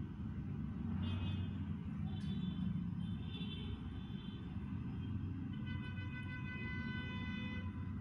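Steady low background rumble, with a higher pitched drone that swells in and fades out three times.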